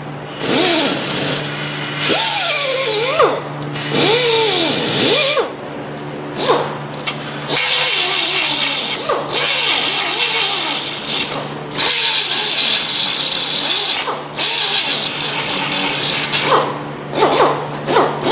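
Small hand-held rotary tool with an abrasive bristle disc, run in repeated bursts of a few seconds, its motor whine rising and falling in pitch as the disc scrubs metal. It is cleaning rust off the sealing face of a brake hose fitting where the copper washer seats. A steady low hum runs underneath.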